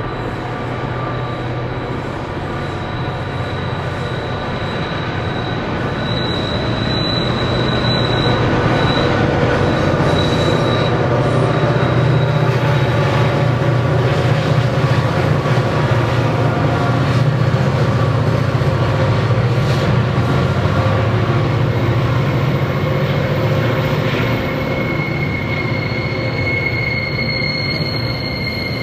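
Streamliner diesel locomotives hauling a freight train up the grade. Their engines grow louder as they pass, peaking about halfway through, then ease as the wagons roll by. High-pitched wheel squeal on the curve comes briefly a quarter of the way in and again near the end.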